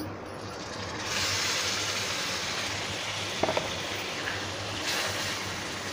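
Yogurt-marinated chicken dropped into hot oil and fried onion paste in a karahi, sizzling steadily from about a second in.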